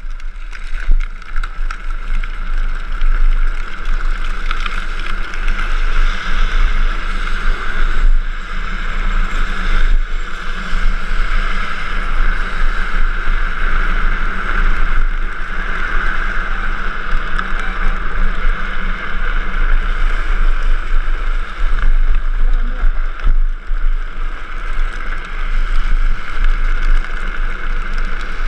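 Drift trike's hard plastic rear wheels rolling and sliding on asphalt in a steady scraping hiss, with wind buffeting the microphone as the trike runs downhill.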